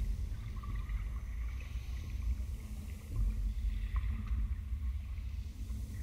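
Ambient electronic soundscape: a deep, fluctuating rumble with a soft hiss above it, with no beat or melody.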